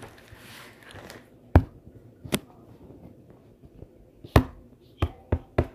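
Six sharp knocks: two spread apart, then one, then three in quick succession near the end.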